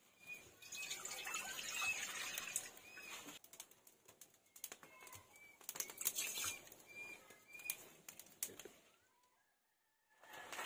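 Water poured from a mug into a hot wok over a wood fire, hissing for the first few seconds, with scattered clicks. Short bird chirps repeat throughout.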